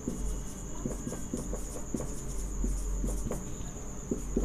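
Marker pen writing on a whiteboard: short scratchy strokes at uneven intervals. A steady high-pitched chirring hum runs underneath.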